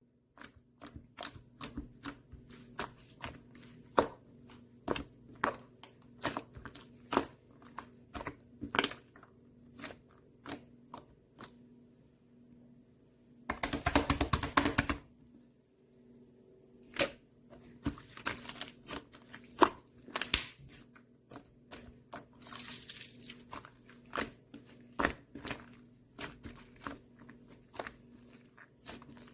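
Irregular clicks, knocks and crinkling handling noise, with a dense rough burst of tearing-like noise about fourteen seconds in, over a faint steady low hum.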